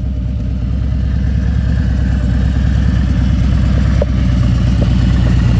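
Harley-Davidson Road Glide Special's V-twin engine running steadily at low revs, close by. It grows a little louder as the bike pulls up alongside.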